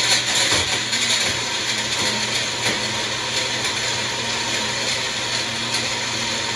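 Small electric kitchen appliance motor running steadily with an even whir, as when blending or beating an ingredient.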